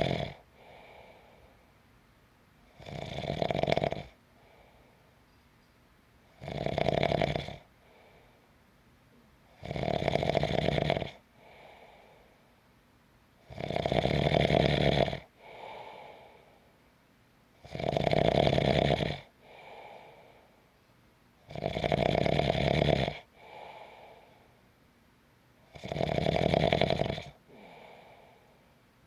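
A person snoring in steady sleep: a loud snore about every four seconds, each followed by a fainter breath.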